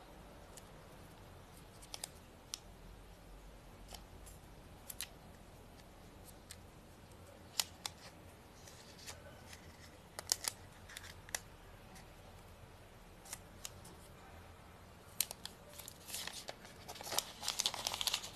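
Light clicks and taps of fingers handling a smartphone in its plastic wrap, then near the end a dense burst of crinkling and crackling as the thin protective plastic film is peeled off the phone.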